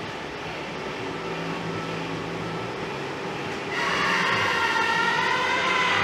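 Steady workshop background noise, then about four seconds in a loud, high-pitched whine or squeal with a slightly wavering pitch starts and runs until it cuts off abruptly at the end.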